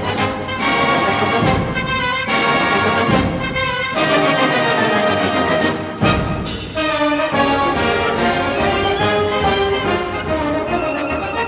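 Orchestral film-score music led by brass (trombones and trumpets), punctuated by sharp accented hits.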